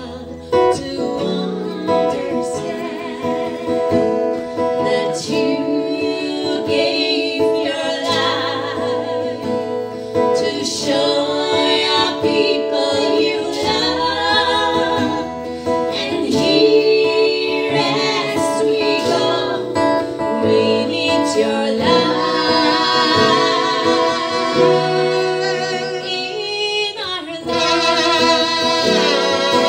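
Live song: women singing to a strummed acoustic guitar.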